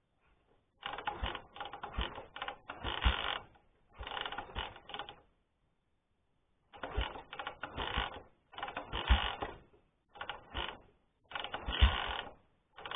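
Ural M-61 motorcycle's flat-twin engine being kick-started over and over: each kick brings a burst of rapid clattering as the engine spins and coughs, and it does not catch and keep running.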